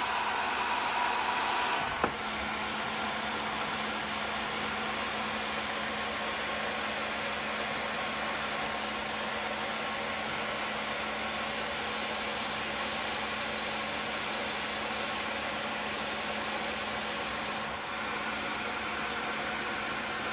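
Hot-air heat gun with a narrow reducer nozzle blowing steadily as it welds a composite plastic strip. A faint high tone over the blowing ends with a click about two seconds in.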